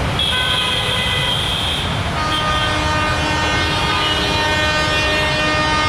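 Approaching metre-gauge diesel locomotive sounding its horn in two blasts, over the low rumble of the train. The first blast lasts about two seconds; the second, on a different note, lasts about four seconds.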